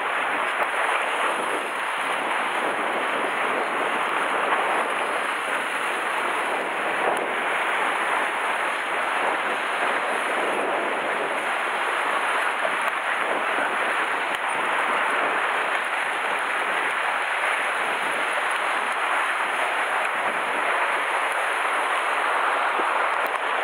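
Sea surf breaking and washing against a rocky shoreline, a steady rushing hiss.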